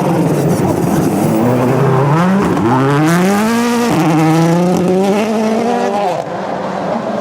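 Rally car engine under hard acceleration: the revs climb steeply, drop sharply at a gear change about four seconds in, then hold steady before falling away near the end.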